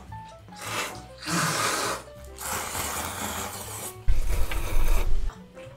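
People slurping noodles from bowls, a few long noisy slurps, over background music.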